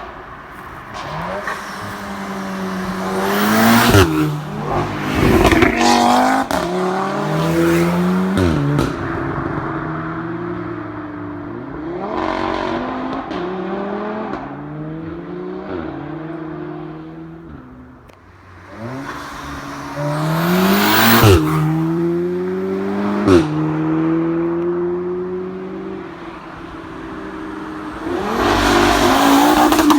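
Audi S3 and RS3 (8V) cars accelerating hard. Engine pitch climbs and drops sharply at each quick upshift: three shifts in the first nine seconds, and a second run starting about eighteen seconds in with two more shifts.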